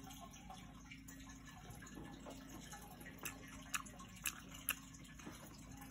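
Faint eating sounds: a child chewing food eaten by hand, with a few short, soft clicks in the second half, over a low steady hum.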